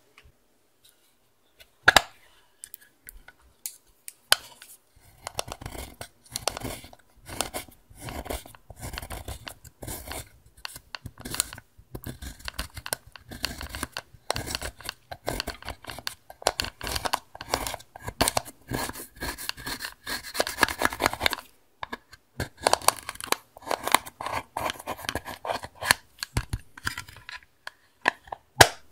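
Plastic spatula scraping and crumbling pressed eyeshadow powder out of its compact pan, a dense run of short scratchy, crunching strokes. A sharp click about two seconds in and a couple more near the end.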